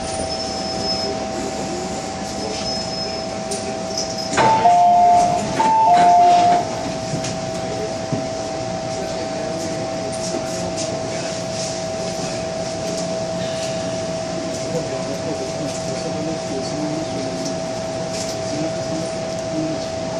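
MTR M-Train carriage standing in a station with a steady electrical hum. About four seconds in there is a click, and a loud two-tone chime sounds twice, each time a high note then a lower one, as the passenger doors open.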